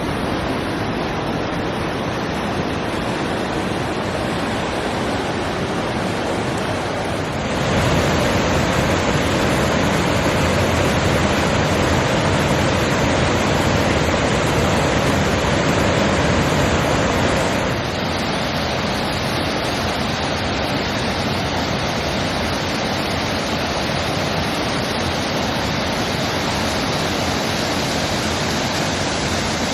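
Mountain creek flowing: a steady rush of water. It steps up abruptly, louder and fuller, about seven seconds in, and drops back about ten seconds later.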